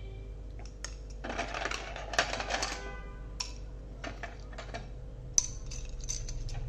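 Loose PBT plastic keycaps clicking and clattering against one another as they are handled, in two short flurries of sharp clicks, over a faint steady hum.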